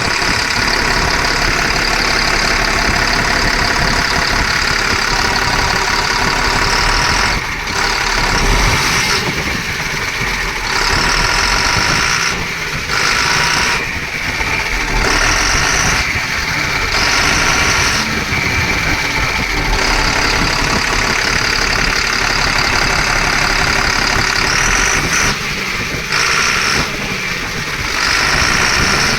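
An engine running at idle, continuous, with its sound breaking and shifting every second or two from about seven seconds in.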